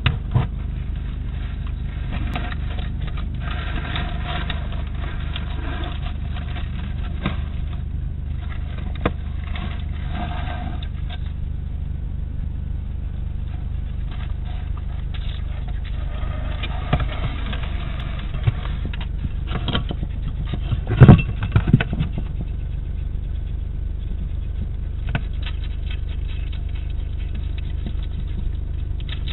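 Steady low hum from the night-time surveillance camera's microphone, with intermittent rustling and scratching as a European hedgehog moves about and feeds, and a sharp knock about two-thirds of the way through.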